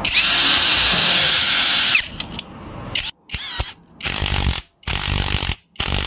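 Dongcheng cordless power tool's motor, triggered in short test runs: one run of about two seconds with a whine that rises as it spins up and falls as it stops. After a pause it is pulsed on and off four times in quick succession.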